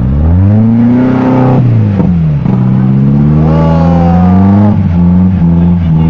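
UAZ off-roader's engine revved hard at full throttle while its wheels spin in deep mud. The engine pitch climbs, dips about two seconds in, rises again and holds high, then drops and wavers near the end.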